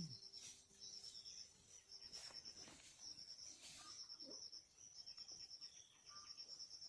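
Faint, high-pitched chirping of insects: short pulsed trills repeating over and over with brief gaps, and a few soft clicks.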